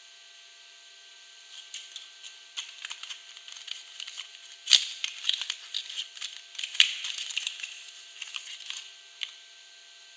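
Soap packaging being opened by hand: crinkling and tearing with many small sharp clicks and two louder snaps near the middle, starting a little way in and stopping shortly before the end, over a faint steady hiss.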